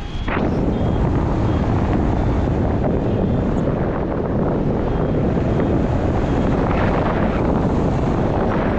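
Wind rushing over the microphone of a paraglider in flight: a loud, steady rush of noise, strongest in the low end.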